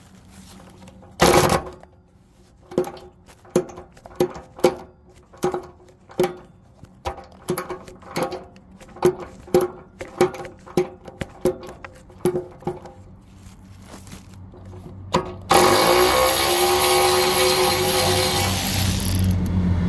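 Metal being struck repeatedly: one heavy knock, then a run of sharp ringing knocks, about two a second, for some ten seconds. About fifteen seconds in, a loud continuous mechanical noise starts up and keeps going.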